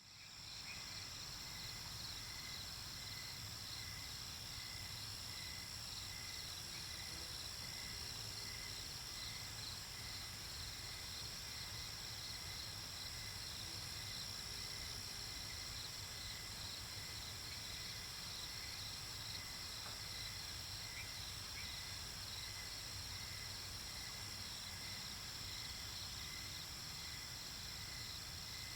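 Night-time chorus of crickets and other insects: a steady high trill with rapid regular chirping beneath it, fading in at the start.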